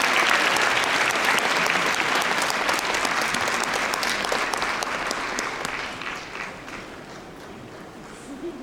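Theatre audience applauding, the clapping thinning out and dying away over the last few seconds to a few scattered claps.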